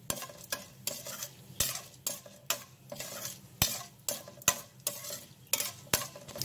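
Mustard seeds with urad and chana dal frying in hot oil in a steel pan: a sizzling hiss broken by sharp, irregular pops and clicks, about two a second, as a perforated steel spatula stirs the tempering.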